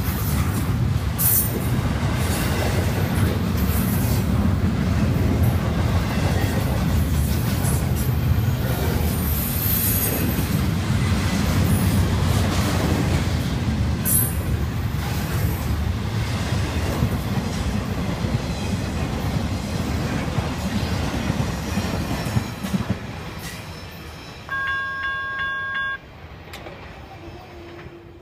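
BNSF double-stack intermodal freight train rolling past with a steady low rumble, wheel clatter and occasional high wheel squeals, fading away near the end as the last cars go by. A train horn sounds one steady blast of about a second and a half near the end.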